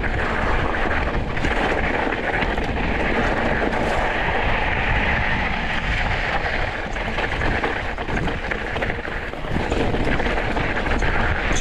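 Mountain bike rolling downhill on a loose, rocky dirt trail: a steady rush of wind on the microphone mixed with the tyres crunching over gravel, with a few small knocks and rattles near the end.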